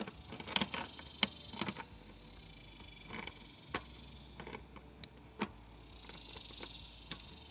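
Hose fittings on an automatic dog waterer's float valve being handled and tightened by hand: scattered small clicks and knocks, with a brief rustling hiss near the end.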